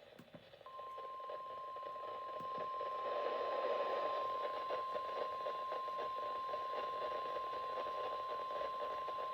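NOAA Weather Radio 1050 Hz warning alarm tone: a single steady high-pitched tone held for about nine seconds over radio hiss, the alert signal that introduces a tornado warning broadcast.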